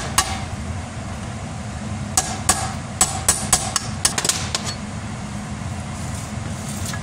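Hammer tapping a pin punch to drive the pin out of a tractor's transmission brake arm shaft. There is one sharp metallic tap at the start, then a quick run of about ten taps between two and five seconds in, over a steady low hum.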